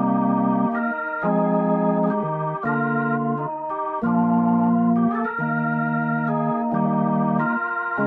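CollaB3 virtual tonewheel organ (a Hammond B3-style plugin) on its Vintage Soloing preset, playing a run of held chords that change every half second to a second.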